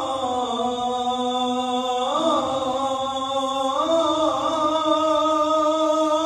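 A man's voice chanting the adhan (Islamic call to prayer), drawing out one long ornamented phrase of "Allahu Akbar" without a break. The pitch steps up about two seconds in and again near four seconds.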